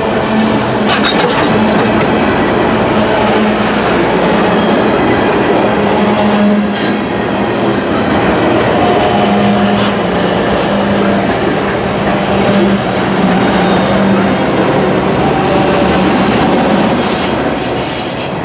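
Tropicana juice train's refrigerated boxcars rolling past close by: steady heavy rumble of steel wheels on the rails, with an on-and-off low hum and a few sharp clicks.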